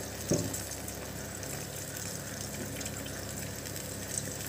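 Fish curry in thick coconut milk cooking in a banana-leaf-lined pan on the stove: a steady, even hiss, with one short knock just after the start.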